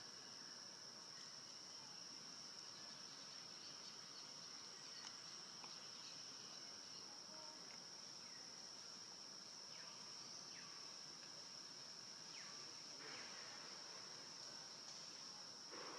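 Faint, steady, high-pitched drone of insects chirring outdoors, with a few soft rustles about two-thirds of the way through.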